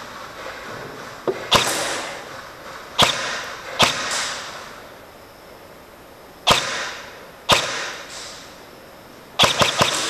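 Airsoft gun shots: single cracks at irregular intervals, then a rapid burst of about five near the end. Each one echoes and fades in a large, empty concrete hall.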